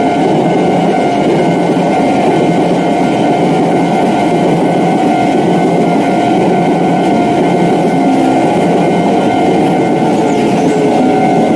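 Train running past at a railway level crossing: a loud, steady rush and rumble of the cars going by, with a few steady tones sounding over it.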